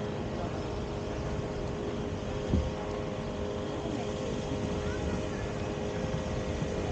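Outdoor street ambience: a steady mechanical hum holding two constant tones over a low rumbling haze, with faint distant voices and one sharp thump about two and a half seconds in.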